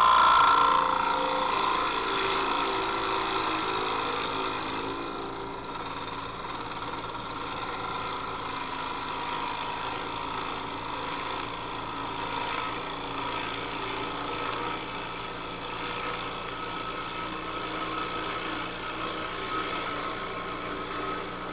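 Wood lathe running with a turning tool against the spinning wood: a steady machine sound, a little louder for the first two seconds.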